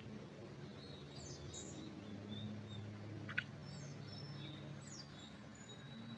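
Faint songbird calls: scattered short high chirps and a few quick descending notes, over a low steady hum. A single sharp click sounds about halfway through.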